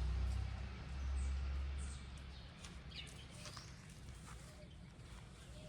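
A low rumble that fades out over the first two seconds, then wild birds calling with short high chirps and quick downward-sweeping notes, plus a few soft low notes.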